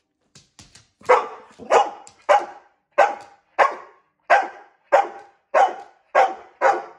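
A dog barking in a steady series of about ten loud barks, roughly one every half second or so, starting about a second in after a few faint clicks. She is barking in protest because her owner wants to brush her.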